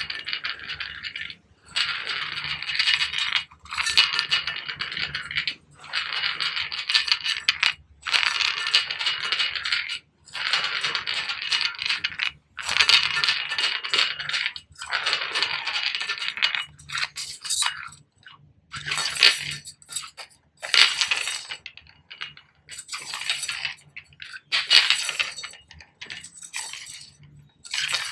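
Spray bottle spraying in a series of hissing bursts, each about two seconds long with short pauses between; in the second half the sprays become shorter, brighter and come in quicker succession.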